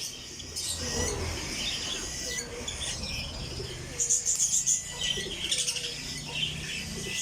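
Parrot chicks giving high, rapid chirping food-begging calls while being handfed, in repeated runs, densest about four seconds in.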